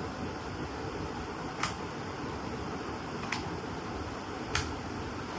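Three light, sharp clicks, spaced more than a second apart, from the Insta360 X5 camera and its battery being handled as the battery is fitted. Behind them is a steady fan-like hiss.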